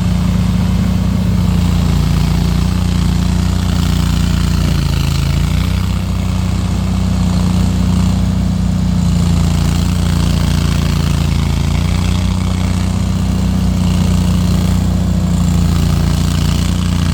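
Remote-controlled Panda 27 mower's engine running steadily under mowing load, dipping briefly in speed about five seconds in.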